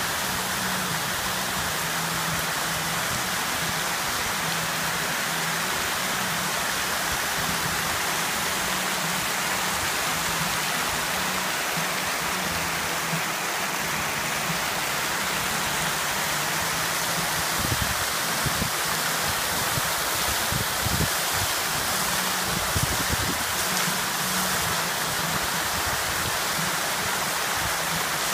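Many jets of an illuminated fountain splashing into the basin, a steady rushing hiss of falling water, with a few low bumps about two-thirds of the way through.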